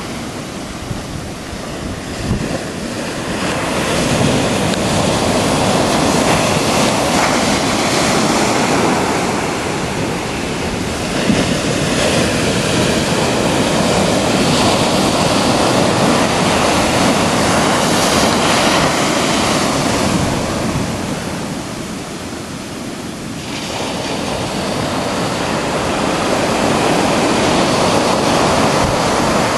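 Pacific Ocean surf breaking and washing up a sandy beach, a steady rush of water that swells as each wave comes in, with quieter lulls near the start and again about two-thirds of the way through.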